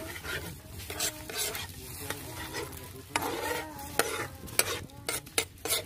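A metal ladle stirring and scraping pork pieces frying in oil in a large metal wok, with steady sizzling. Sharp clinks of the ladle against the wok come several times, mostly in the second half.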